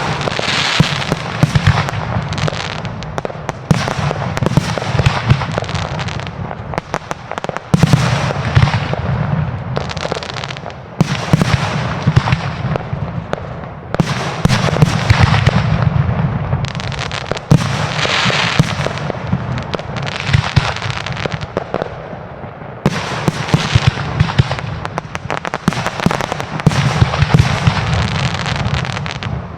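Fireworks display: a dense, continuous barrage of exploding shells and crackling, swelling and easing in waves every few seconds.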